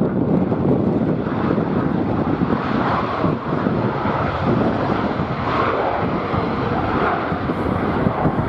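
Jet airliner engines heard through heavy wind buffeting the microphone. The engine sound comes up about a second in and eases off near the end.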